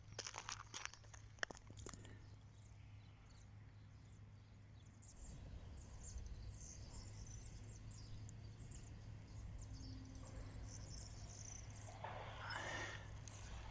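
Faint outdoor ambience: high chirping calls over a steady low hum, with a few clicks in the first two seconds and a louder, wavering call near the end.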